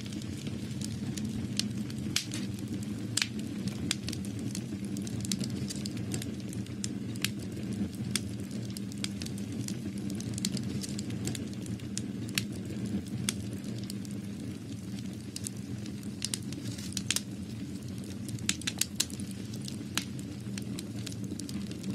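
Irregular sharp crackles and pops, a few a second, over a steady low hum.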